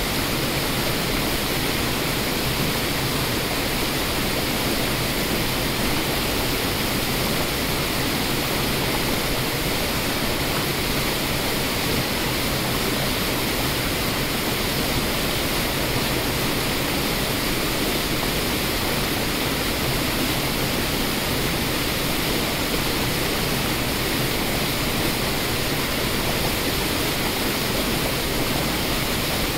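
Waterfall and rapids over rock: a steady, even rush of water that does not change.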